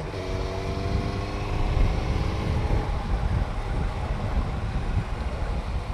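Motorcycle running along in traffic, with a low rumble of wind and road noise on the action-camera microphone. A steady engine note, rising slightly in pitch, shows for the first few seconds and then sinks into the rumble.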